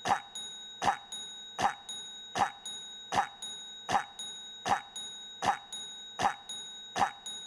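A cough looped mechanically, about ten identical coughs in a row, evenly spaced roughly three-quarters of a second apart, each followed by a fainter second sound. A thin, steady high tone runs underneath.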